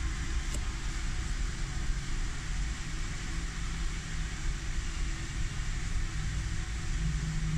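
Steady low rumble with an even hiss of background noise, with one faint click about half a second in.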